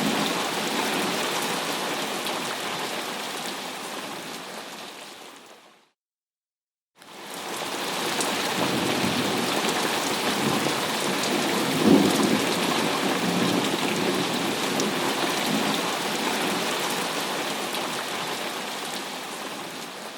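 Thunderstorm: steady heavy rain with low rolling thunder. It fades out about five seconds in, falls silent for about a second, then fades back in, with a louder thunder rumble about halfway through. It fades down again near the end.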